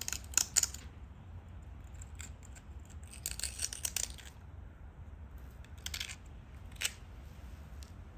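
A stone point being worked with a hand-held pressure flaker: several short bursts of scratchy clicking as the tool tip scrapes and catches on the stone edge, and one sharp click about seven seconds in.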